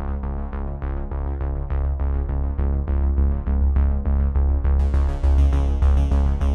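Electronic background music with a synthesizer and a steady drum-machine beat; a brighter high layer joins in near the end.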